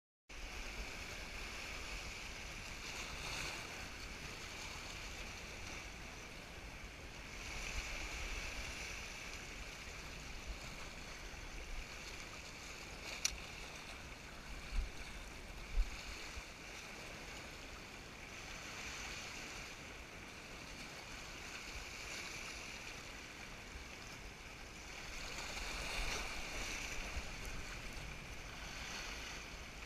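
Sea swell washing and sloshing over rocks in a shallow gully, surging and easing every few seconds, with wind rumbling on the microphone. A sharp click about halfway through and two low knocks just after it.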